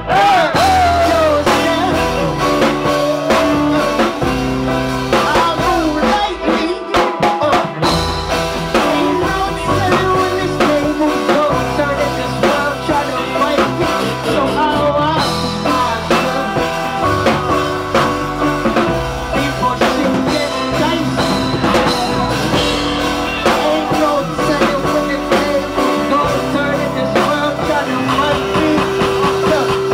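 Live hip-hop performance: a loud backing track with a drum beat, with a voice on the microphone over it. The low end of the beat drops out briefly about seven seconds in.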